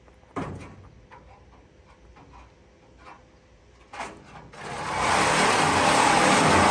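A couple of knocks, then a metal-cutting tool starts up about four and a half seconds in, building over half a second to a loud, steady rushing hiss with a low hum beneath it.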